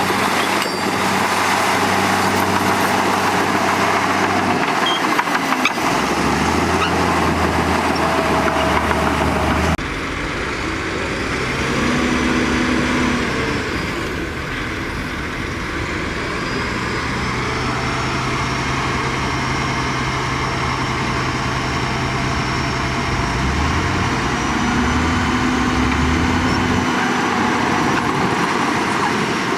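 Diesel engines of heavy earthmoving machinery running steadily. The engine tones step up and down in pitch, and the whole sound changes abruptly about ten seconds in.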